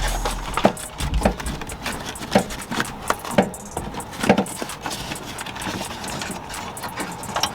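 Irregular clicks, knocks and rattles from inside a car door as a stuck door panel piece is tugged and worked at but will not come loose.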